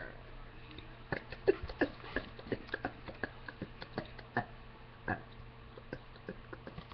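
Faint, irregular short clicks and ticks, one or two a second, over a steady low hum.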